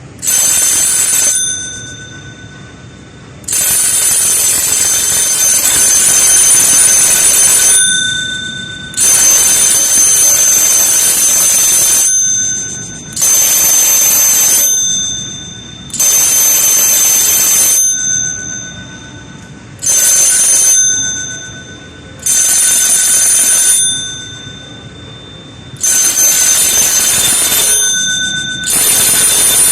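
Electric alarm bell of a laser alarm ringing in repeated bursts of one to four seconds, stopping and starting again about nine times.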